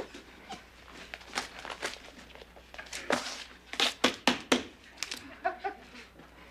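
Paper rustling and short scratchy strokes of someone drawing on paper, in quick bursts.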